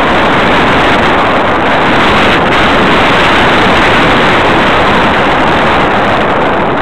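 Steady, loud rush of airflow over the microphone of a camera mounted under the wing of an RC model motor glider in flight, with no clear motor tone standing out.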